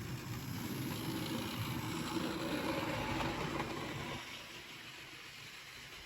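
Hornby 00 gauge Thomas the Tank Engine model locomotive running on its track, pulling two coaches: the small electric motor whirs and the wheels rattle. It grows louder towards the middle, then drops off about four seconds in.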